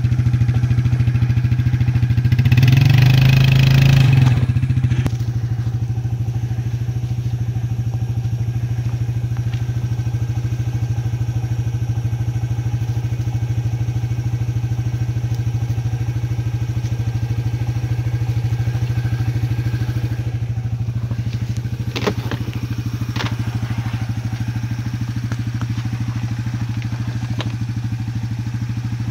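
Suzuki Ozark ATV's single-cylinder four-stroke engine running steadily, revved hard for about two seconds a few seconds in while the quad is stuck in deep mud, then settling back to idle. A few sharp clacks near the end.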